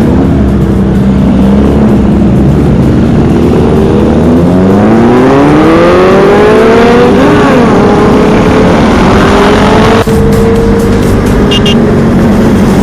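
Motorcycle engine accelerating, its pitch rising steadily for about three seconds from around four seconds in, then settling to a steady pitch at speed.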